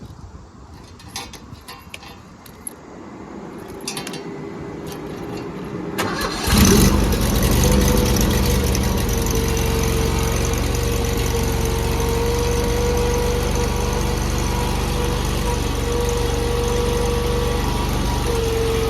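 Landhero LDH-T460XX mini skid steer: a few clicks, then its engine starts abruptly about six and a half seconds in and settles into steady running, with a steady high tone over the engine note.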